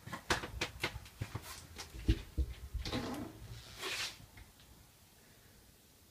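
A run of clicks and knocks with a couple of low thumps, then a short swish about four seconds in: a glass shower door and its metal frame being handled and swung open in a small bathroom.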